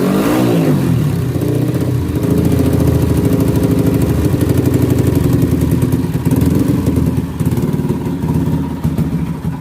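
Yamaha Vixion single-cylinder motorcycle engine, bored out to 360 cc, blipped once just at the start and then idling with a steady pulsing beat.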